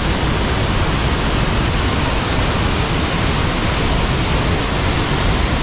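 Curug Omas waterfall, a tiered fall on the Ci Gulung river, running heavy after rain: a loud, steady rush of falling water that does not let up.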